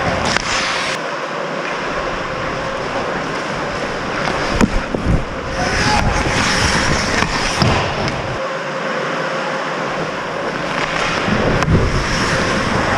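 Ice hockey play: skate blades scraping and carving the ice, with a few sharp clacks of stick and puck.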